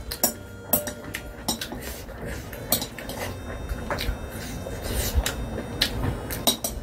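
Metal chopsticks clinking and tapping against a glass bowl as stir-fried instant noodles are lifted out, with a wooden spoon alongside; a string of short, irregular clinks, several a second at times.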